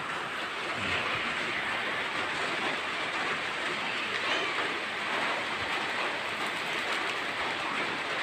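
Steady rushing background noise, even throughout, with no clear single event.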